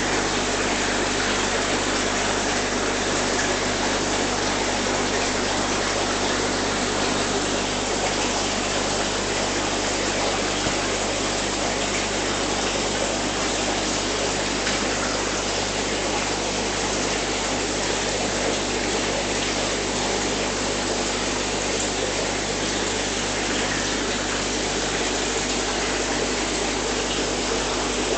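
Aquarium filtration running: a steady, even rush of moving water with a faint pump hum beneath it, unchanging throughout.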